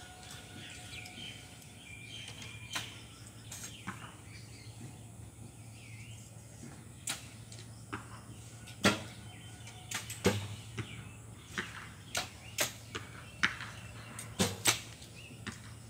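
Recurve bowstrings snapping forward on release as several archers shoot in turn: a run of sharp cracks, a few at first, then about one every second in the second half.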